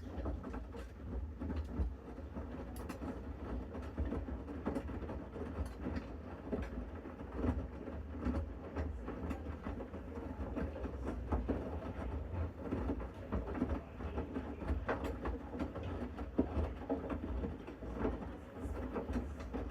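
Bosch Series 6 front-loading washing machine in the main wash of a Mixed Load 60° SpeedPerfect programme: the drum tumbling the laundry, with a steady low motor hum, sloshing and frequent light clicks and knocks. It starts suddenly at the beginning.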